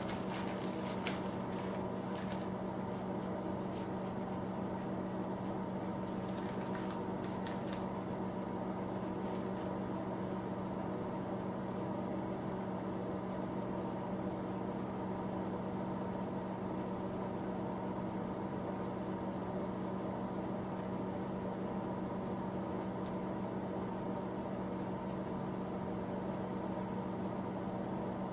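Steady electric hum of a small shop space heater running, with a few light clicks and taps in the first several seconds.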